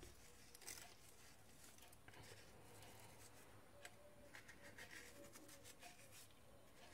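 Near silence, with faint light rustling and small ticks from hands sprinkling salt over raw chicken pieces in glass baking dishes.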